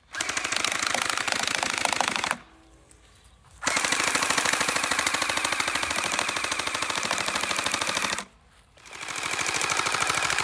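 Electric Splatter Ball gel blaster firing on full auto in three long bursts, a rapid run of shots over a steady motor whine, with short pauses between bursts.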